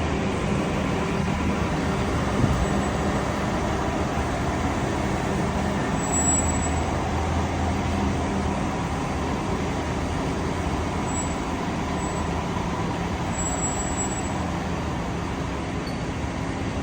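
Rolls-Royce Wraith heard from outside the car, running steadily, with a few short, faint high-pitched squeals when the brakes are applied. The squeal is an unexplained brake noise whose cause the owner does not know.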